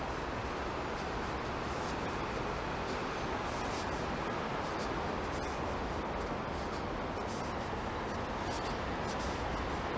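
Steady outdoor background noise, an even hiss, broken by short scratchy rustles at irregular moments.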